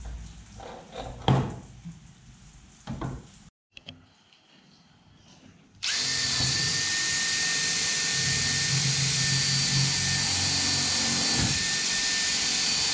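A few knocks as a chipboard drilling template is handled and seated on its locating pins. Then, about six seconds in, a cordless drill starts and runs steadily with a high whine, boring through the chipboard template into the fibreglass mould flange.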